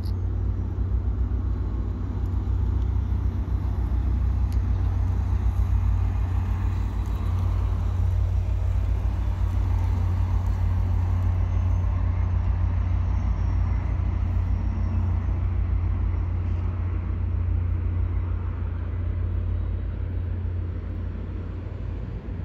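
A train passing at a distance: a steady, loud low rumble with rolling noise above it, easing off near the end.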